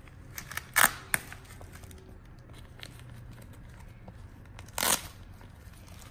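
Fastening tabs of a doll's disposable diaper being ripped open: short tearing rips about a second in and again near five seconds, with light rustling of the diaper between.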